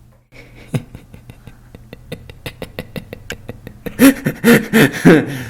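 A person laughing: quick breathy catches that build up, then breaking about four seconds in into loud, voiced 'ha' bursts a few tenths of a second apart.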